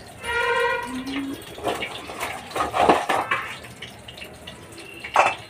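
Paneer pieces sizzling as they fry in oil in an iron kadai, with a metal ladle knocking and scraping against the pan. The clatter is loudest about three seconds in, and there is one sharp knock near the end.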